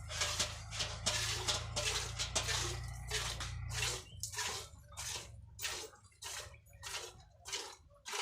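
Cow being milked by hand: jets of milk squirt rhythmically into a pail, at about two to three squirts a second.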